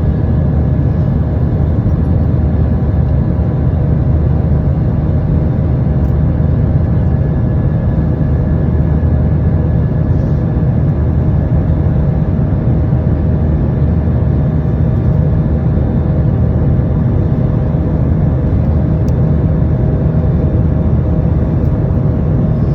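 Cabin noise of a Boeing 737-800 at take-off power: its CFM56 turbofan engines running steadily, a constant deep rumble with a faint steady hum above it.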